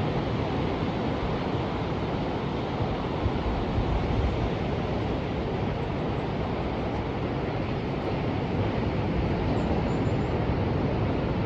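Ocean surf: waves washing in a steady, deep rush without let-up.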